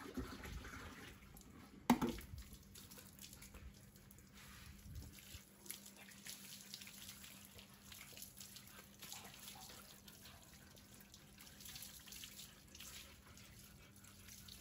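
Water from a garden hose running and splattering onto a wet husky's coat and the tiled floor as the dog is rinsed, with dripping. A single sharp knock about two seconds in is the loudest sound.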